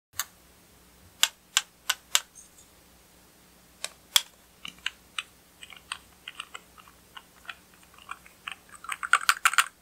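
Sharp plastic clicks and taps of cosmetic packaging being handled and opened, a liquid-lipstick tube with a metal-look cap and a cat-shaped plastic container whose head is pulled off. The clicks come singly, then in a scattered run, with a dense flurry of loud clicks near the end.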